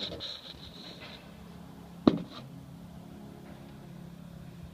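Handling noise of a phone camera moving inside a bare aluminium aircraft wing: a high scraping for about the first second, then a single sharp knock about two seconds in. A steady low hum follows.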